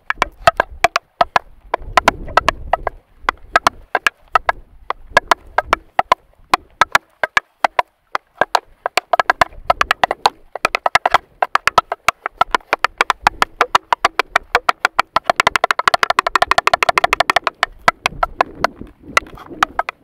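Tap shoes striking a small wooden tap board: irregular rhythms of sharp toe and heel taps, breaking into a fast run of rapid taps near the end.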